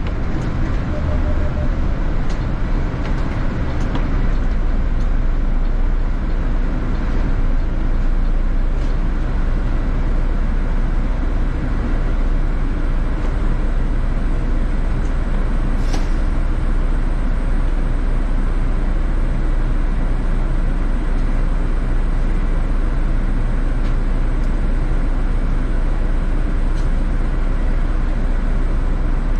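Inside a city bus: steady engine and road rumble, heaviest in the low end, with a few faint rattles and one brief sharp click about halfway through.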